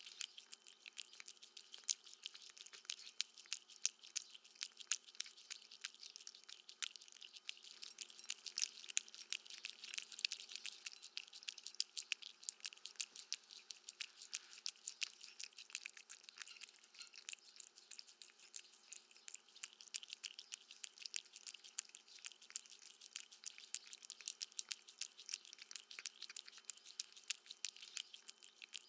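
A cat eating, chewing steadily with a continuous stream of quick, sharp clicks.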